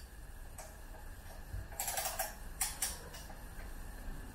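Oil-filter wrench being fitted and settled on the oil filter of a four-stroke outboard motor: a few light, irregular metal clicks and taps, busiest about halfway through.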